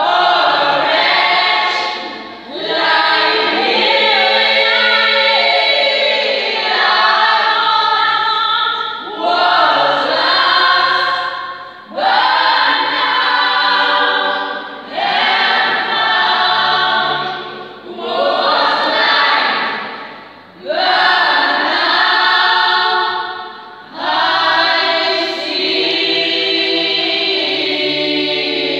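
Gospel choir of mostly women's voices singing together in phrases of a few seconds, with short breaks between them.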